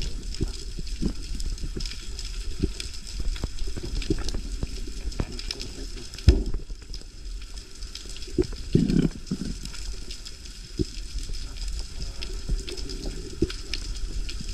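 Underwater ambience around a freediver on a rocky reef: a steady low rumble with many scattered sharp clicks and pops, a louder knock about six seconds in and a brief low rush about nine seconds in.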